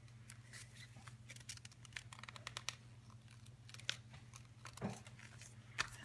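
Sheet of paper being folded and creased by hand: faint, scattered crinkles and rustles.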